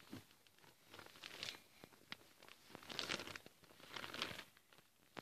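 Faint rustling of a blanket and bedding being handled, in a few short soft patches with a couple of small clicks.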